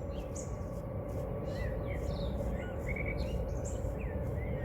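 Dawn birdsong outdoors: several birds giving many short chirps and quick whistled notes, over a steady low background hum.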